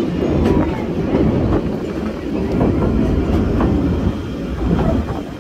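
Metre-gauge railway coaches running along the track: a steady rumble with irregular clattering knocks from the wheels over the rail joints.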